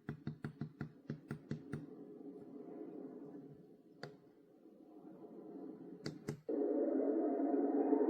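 Momcozy sunrise alarm clock and white-noise machine: a quick run of about ten clicks, then a soft noise that swells and fades. After two more clicks, a steady white-noise hiss comes on about six and a half seconds in.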